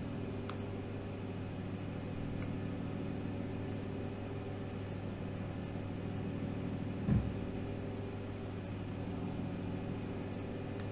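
Steady low hum made of several pitched lines, with a few faint clicks and one soft thump about seven seconds in as a telescope tube ring is handled and tightened.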